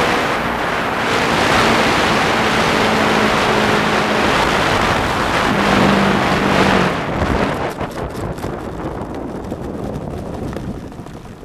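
Wind rushing over a radio-controlled P-51 model plane's onboard camera as it flies in low, with a steady motor hum underneath. About seven seconds in it touches down, and the rush gives way to a clicking, rattling roll over rough tarmac that fades as the plane slows to a stop.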